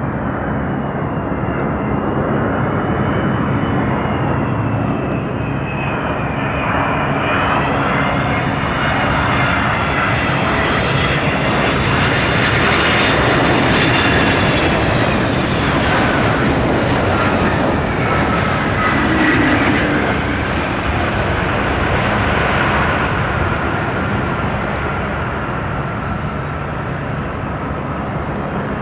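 Boeing 777-200ER airliner landing, its two Pratt & Whitney PW4000 turbofans whining over a loud jet rush. The whine slides in pitch and grows loudest about halfway through as the jet passes close just above the runway, then fades as it rolls away down the runway.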